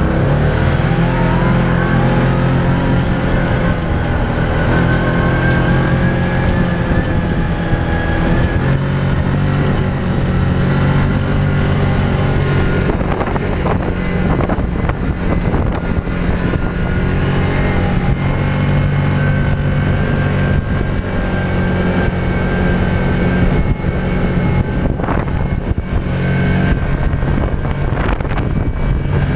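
Dune buggy engine running hard while driving over sand, its pitch climbing over the first several seconds as it speeds up, then holding steady, with a few short knocks from the ride.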